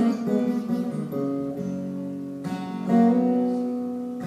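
Acoustic guitar played solo, chords strummed and left ringing, with a fresh strum about three seconds in.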